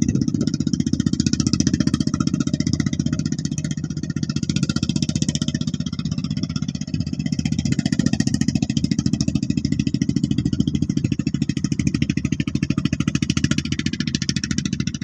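Engine of a homemade farm truck running steadily with a fast, even chugging.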